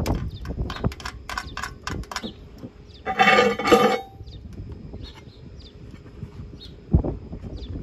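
A rod tapping on a thin aluminum can: a quick series of light metallic clinks over the first two seconds. About three seconds in comes a louder pitched sound lasting about a second, from a source that cannot be made out.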